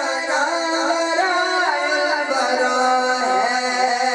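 A man singing a naat, a devotional poem, into a microphone, drawing out long notes that waver and slide in pitch.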